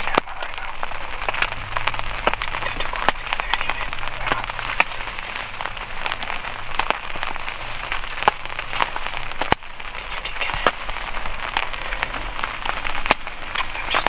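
Rain pattering on a surface: a steady, dense, irregular patter of drop hits.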